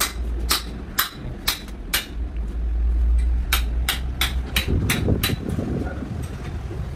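Sharp metallic knocks of metal against metal: about two a second at first, then a quicker run of them after about three and a half seconds. They come as a crankshaft is handled and fitted into a crankshaft grinding machine, over a steady low hum of workshop machinery.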